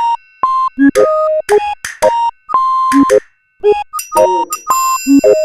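A quick run of short electronic beeps at changing pitches, several a second, each starting with a sharp click.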